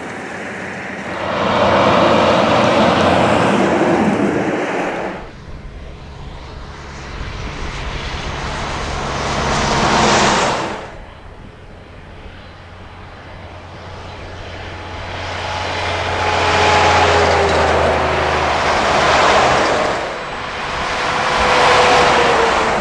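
Semi trucks passing close by one after another on a highway, each a rising rush of diesel engine and tyre noise that swells and fades, with a steady low engine drone underneath. An abrupt change about five seconds in, then four more passes, the last three close together.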